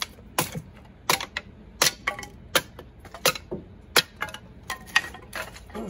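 A hatchet splitting kindling off a board on a wooden chopping block: about eight sharp chops, one roughly every three-quarters of a second, each followed by the lighter clatter of a split stick.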